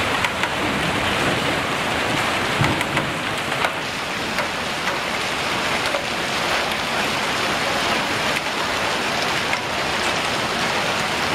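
Heavy rain mixed with hail pelting the ground and roofs: a dense, steady hiss with scattered sharp ticks from hailstone impacts.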